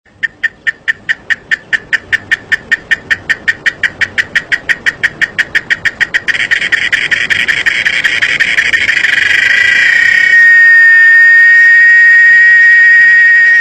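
Cicada singing: a fast run of sharp pulses, about six a second, that merge about six seconds in into a continuous buzz, then settle about ten seconds in into a loud, steady, high whine.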